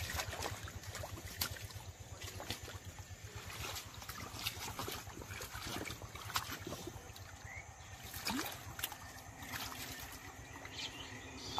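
Hands splashing and sloshing in shallow muddy water, with scattered wet slaps and clicks as someone gropes through mud and weeds for fish.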